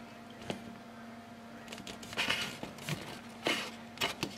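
Soft handling noises of plastic model-kit parts: a few light clicks and two brief rustles about two and three and a half seconds in, over a faint steady hum.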